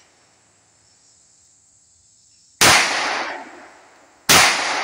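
Two 9mm pistol shots from a Smith & Wesson 3953 double-action-only pistol, the first about two and a half seconds in and the second under two seconds later, each followed by a long fading echo.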